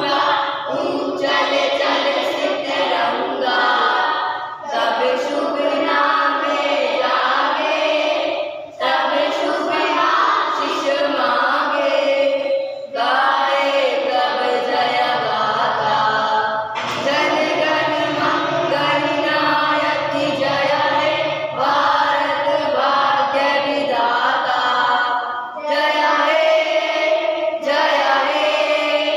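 A group of schoolchildren singing together in unison, without instruments, in phrases of about four seconds separated by short breaths.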